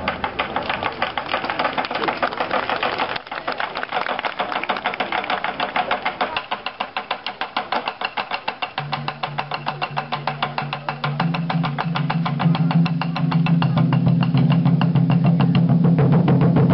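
Taiko drums beaten in a fast, even run of sharp strokes, with no break between them. About halfway in, a sustained low note that steps in pitch comes in under the drumming, and the whole gets louder toward the end.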